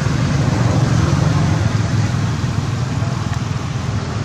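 Steady low hum of road traffic, with an even wash of noise over it.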